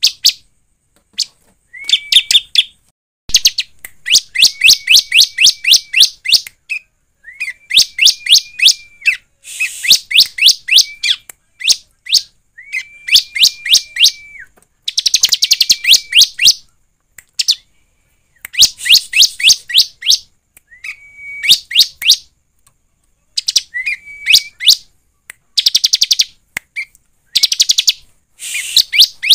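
Bar-winged prinia (ciblek) singing: phrases of rapid, repeated sharp notes, about six a second, some with a steady whistled tone running beneath. The phrases last one to three seconds each, with short pauses between them.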